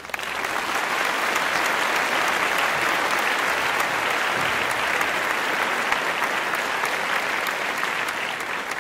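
Applause: many people clapping steadily.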